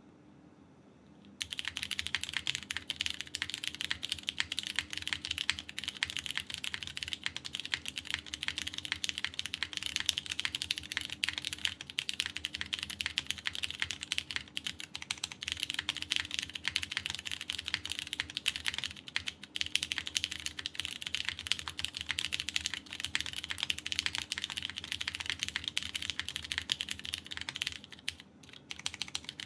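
Continuous typing on a KBDfans Tofu TKL mechanical keyboard with lubed Cherry MX Purple tactile switches, a polycarbonate plate in top-mount configuration and GMK keycaps: a dense run of key clacks. It starts about a second and a half in, with a brief pause near the end.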